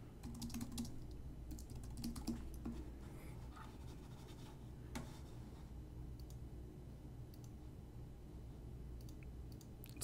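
Faint typing on a computer keyboard: a quick run of keystrokes in the first three seconds, then a few scattered clicks, over a low steady hum.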